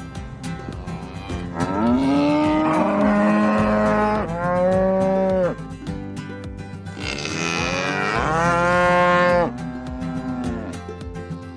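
Cows mooing: long, drawn-out moos, one run starting about two seconds in and a louder one about seven seconds in.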